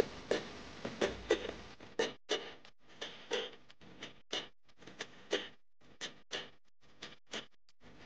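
Steady rhythmic ticking from a percussive background track: pairs of sharp clicks about once a second.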